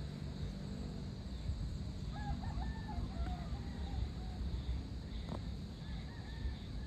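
A rooster crowing once, about two seconds in, over a steady low rumble.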